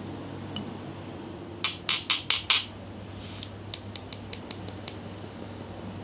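Hard objects knocking and clicking. Five loud, quick knocks come about four a second, then a faster run of about eight light clicks.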